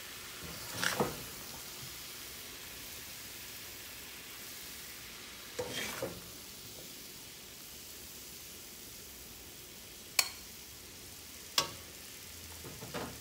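Cabbage-and-potato sabzi being scooped out of a hot stainless-steel pan: a spatula scrapes through the food and across the pan about a second in and again about six seconds in, then clinks sharply on metal twice near the end, over a steady faint sizzle from the still-hot pan.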